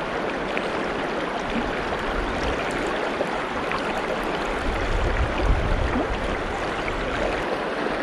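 Mountain stream running: a steady, even rush of water, with a brief low rumble about five seconds in.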